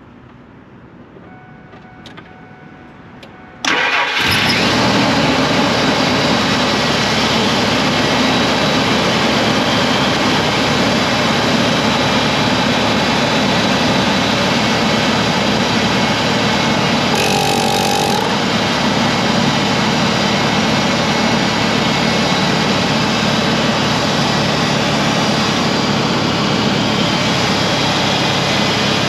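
Truck engine being jump-started from a battery pack: it catches abruptly about three and a half seconds in and then runs loud and steady, with a brief higher-pitched sound over it about halfway through.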